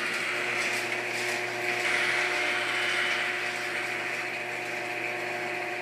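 Craftsman half-horsepower garage door opener running steadily, moving the door, with a constant hum over mechanical noise.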